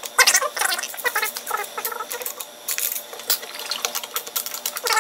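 HDPE plastic robot base plates and their bolts being handled and turned over on a wooden workbench: irregular clicks, knocks, scrapes and light clinks of hardware, with a louder knock just after the start.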